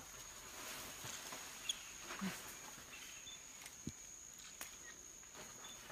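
Faint forest ambience: a steady high insect drone runs throughout, with a few small clicks and rustles and one brief soft sound about two seconds in.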